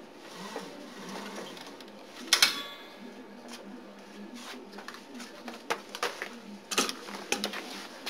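Rope being pulled through a rope-length counter: irregular clicks and knocks from the mechanism, with one sharp clack and a brief metallic ring a little over two seconds in. The clicks come more often in the second half.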